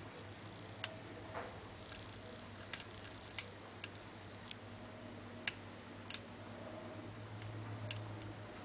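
Faint, irregular metallic ticks of a short hook pick working the pin tumblers of a Yale 5-pin door lock while a wrench holds tension in the keyway, about eight clicks, with a low steady hum underneath.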